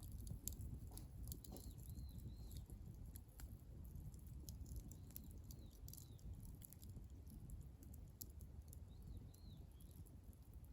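Wood bonfire crackling faintly with irregular small pops, while a small bird chirps in three short runs of two or three arched notes.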